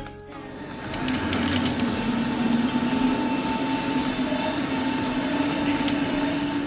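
Wagner WDE 500 Plus metal lathe running, a steady mechanical hum with a high whine and a few faint clicks.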